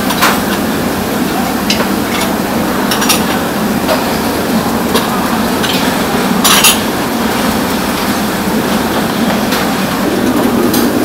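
Restaurant kitchen noise: a steady rush of running kitchen equipment, with scattered sharp clinks of dishes and utensils, the loudest about six and a half seconds in.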